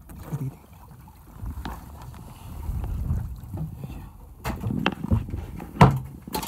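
A fish being landed in a landing net on a boat: rustling, rumbling handling noise, then several sharp knocks as the net comes over the gunwale onto the deck, the loudest near the end.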